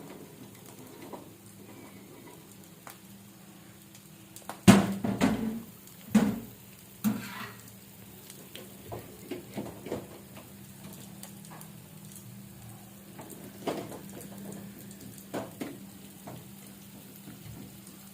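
Cashew nuts and raisins frying in hot ghee, sizzling, with a spoon knocking and scraping against the pan. A run of louder clatters comes about five to seven seconds in, then lighter taps, over a steady low hum.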